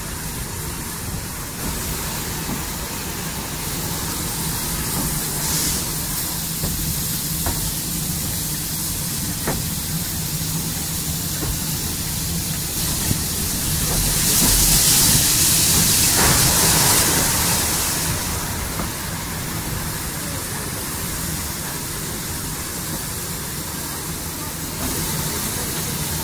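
Saddle-tank steam locomotive running along the line: a steady rush of wind, steam hiss and wheels on rail with a low hum and a few faint clicks. The sound swells louder for a few seconds as the engine passes under a stone bridge about fourteen seconds in.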